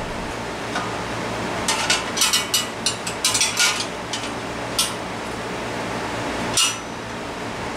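Light metal clinks and knocks as a chrome moped front fender is handled and worked into place over the front wheel: a quick run of them about two to four seconds in, then two single knocks later. A steady fan hum underneath.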